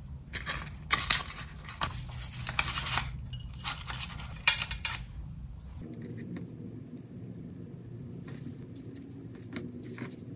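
Crisp toasted crust of a corn-cheese toast crackling as it is torn apart by hand, in a run of sharp crackles over the first five seconds. About six seconds in it gives way to a quieter stretch with only a few soft crackles of bread being pulled apart.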